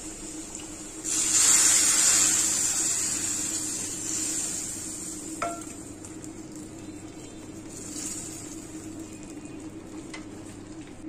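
Hot oil tempering of fried onion, garlic and green chilli poured into a pot of dal, hissing loudly as it hits about a second in and dying away over several seconds. The spatula scrapes the pan out into the pot, with a sharp tap a few seconds later.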